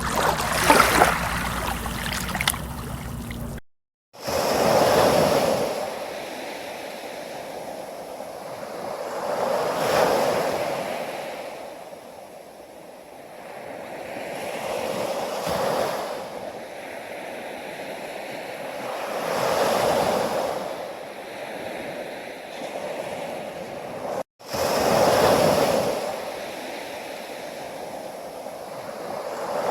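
Ocean surf: waves breaking and washing in, each surge swelling and fading about every five seconds. The first few seconds are a different recording, with a low steady hum under splashing water, which cuts off abruptly.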